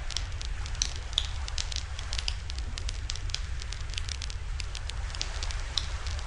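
Wood campfire crackling and popping, with irregular sharp snaps over a steady low rumble.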